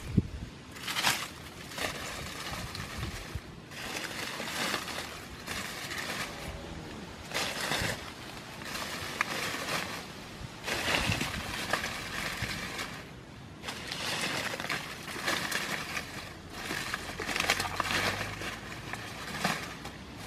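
Dry banana leaves crackling and rustling as they are gathered and piled by hand, in uneven spells with short lulls.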